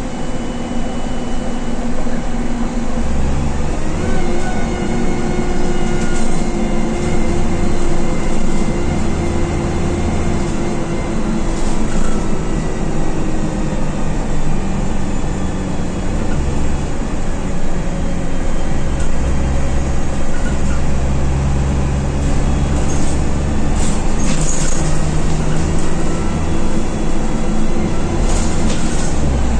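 Dennis Dart single-deck bus engine running under way, heard from inside the passenger cabin near the rear: a low rumble whose note rises and falls every few seconds as the bus pulls, eases off and changes gear, with a faint whine above it.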